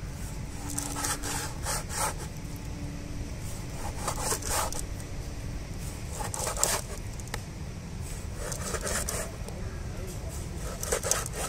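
Large knife sawing through thick marlin flesh and knocking on a wooden cutting board, a short stroke about every two seconds.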